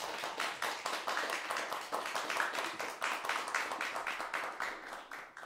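A small audience applauding with dense, irregular hand claps that end abruptly near the end.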